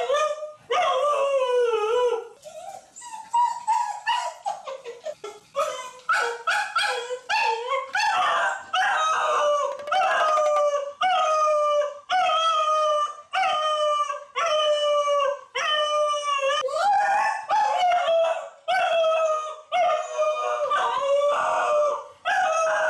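Cocker spaniel howling and wailing, left alone in a fit of separation anxiety. It starts with one long wavering cry, then after a quieter pause gives short falling wails about once a second, eerie and almost human.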